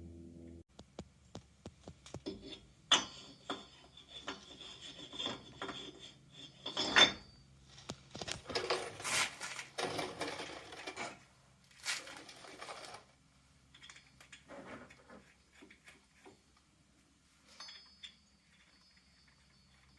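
Metal clinks and knocks with brief ringing, then scraping and rubbing, as a wheel spacer and hardware are handled and worked onto the wheel hub and studs.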